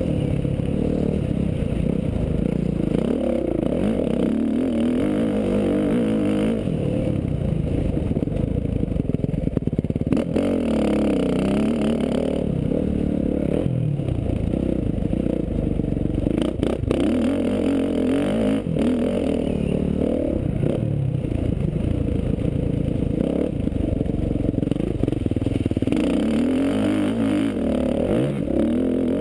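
Motocross dirt bike engine revving up and shifting down over and over as it is ridden around a dirt track, heard close from the rider's helmet camera, with a few sharp knocks along the way.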